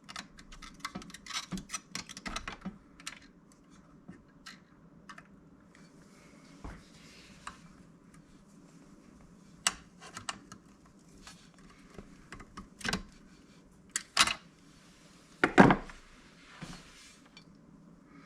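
Light clicks, rattles and knocks of small metal parts and hand tools being handled while a chip extractor's motor is taken apart: a quick run of clicks in the first few seconds, then scattered knocks, the loudest about fifteen and a half seconds in.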